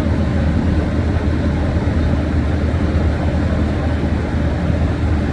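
Heavy diesel engine running steadily, a constant low hum with no change in speed.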